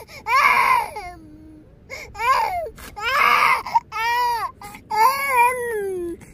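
A small child crying: about five cries in a row with short breaths between, each sliding down in pitch at its end, the last one the longest.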